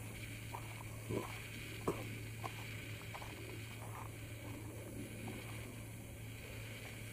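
Footsteps crunching on a gravel trail, with a few sharper crunches about one and two seconds in, over a steady low hum and hiss.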